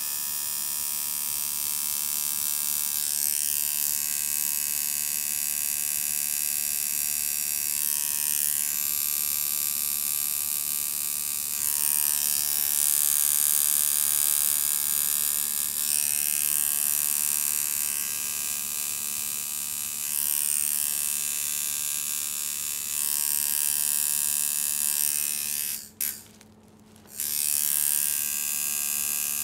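Custom-built tattoo machine buzzing steadily as it runs needles into skin, its level shifting a little as it works; it cuts out for about a second near the end, then starts again.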